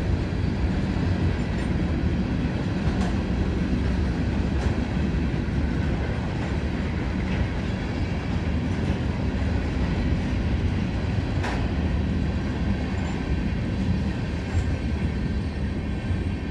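Freight train of railroad tank cars rolling past: a steady low rumble of steel wheels on the rails, with a few sharp clicks from the wheels and couplers.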